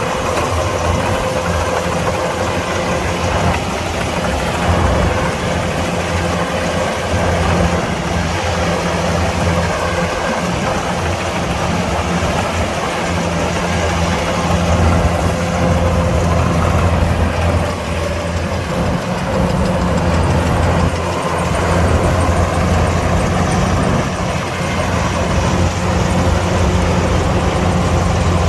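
Kubota DC-105X combine harvester's diesel engine and machinery running steadily under load, a constant low drone with a busy mechanical clatter over it.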